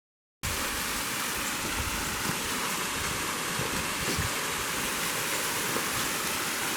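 Waterfall rushing steadily, cutting in suddenly about half a second in, with some low buffeting of wind on the microphone.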